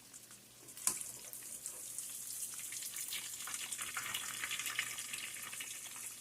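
Meatballs sizzling and crackling in hot oil in a frying pan, a steady hiss with many small pops. A single knock about a second in.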